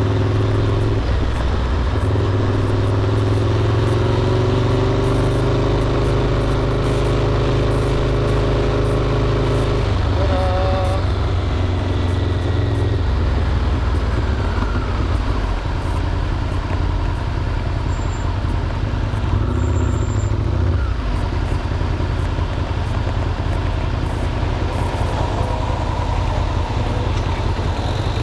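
Motorcycle engine running under way through city traffic with wind noise, its pitch rising and falling as the bike speeds up and slows.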